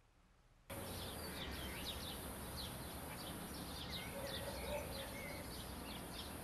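Outdoor ambience: a steady background hum with many small birds chirping in short, quick calls. It cuts in abruptly after a brief moment of near silence.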